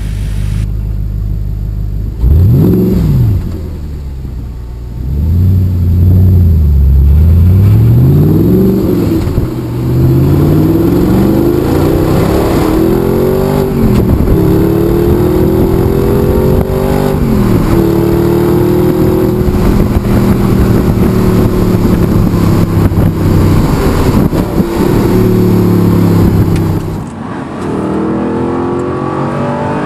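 Audi R8's 4.2-litre FSI V8 revving briefly, twice, then pulling hard through the gears. Its pitch climbs and drops sharply at each upshift.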